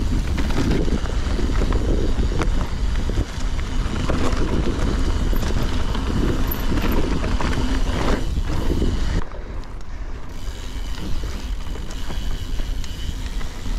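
Wind buffeting the microphone of a GoPro carried on a moving bike, with rumble and small rattles and knocks from riding over rough ground. It eases off about nine seconds in.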